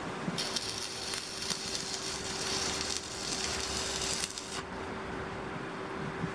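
Stick (MMA) welding arc crackling and hissing as a short weld is laid on a steel bar, starting about half a second in and cutting off suddenly after about four seconds.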